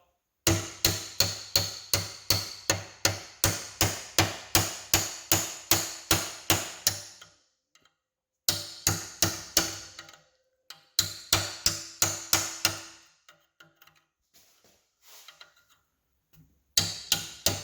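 Hammer striking a chisel against a steel rivet head on a flywheel to knock the head off: rapid, evenly spaced metallic blows, about three a second, with a ringing tone behind them. The blows come in several runs with short pauses between.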